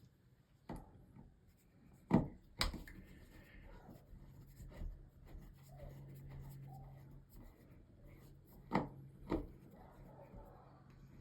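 Sharp clicks and knocks of car dashboard parts being handled and taken out, about five single knocks with light rubbing between them. A faint steady hum runs underneath for a few seconds in the middle and again near the end.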